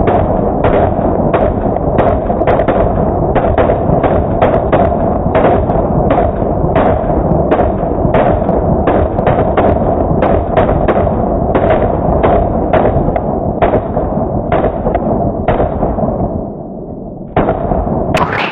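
Several rifles firing in quick succession from more than one shooter, about two shots a second, the reports running into each other. The shooting thins out after about sixteen seconds, and a last few shots come near the end.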